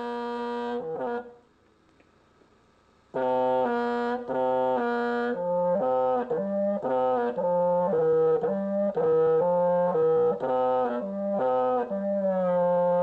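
Background music: a horn-like wind instrument playing a slow melody. A held note cuts off about a second in and there is a short gap of near silence. The melody then resumes with notes about two a second and settles into a long held note near the end.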